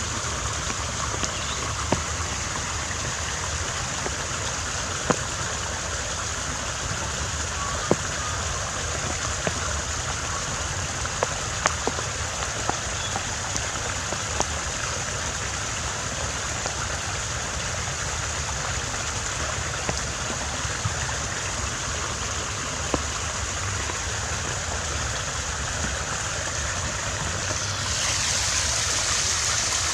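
Water trickling and splashing steadily in a Japanese garden water feature, with scattered sharp drips and plinks; the flow grows a little louder and brighter near the end.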